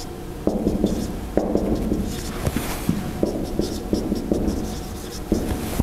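Marker writing on a whiteboard: a string of short strokes and taps.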